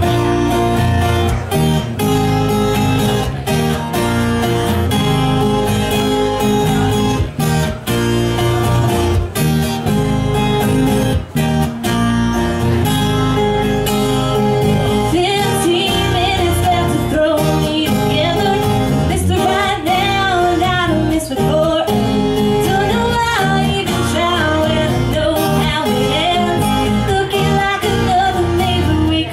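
Background music: a guitar-backed song, with a singing voice coming in about halfway through.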